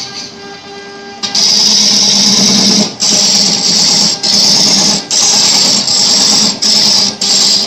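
Wood lathe spinning a wooden spindle with a hand-held turning chisel cutting into it: a loud, hissing scrape of steel on the turning wood that starts about a second in, broken by short pauses about once a second. Before it, only the lathe's steady hum.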